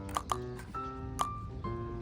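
Background instrumental music: a melody of held pitched notes over sharp percussive clicks about once a second.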